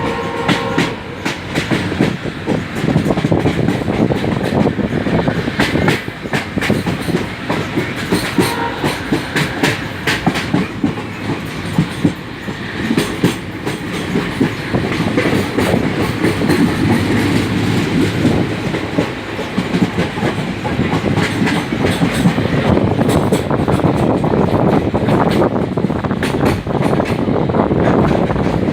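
Passenger train running along the track, with a steady rumble and the clickety-clack of wheels passing over rail joints.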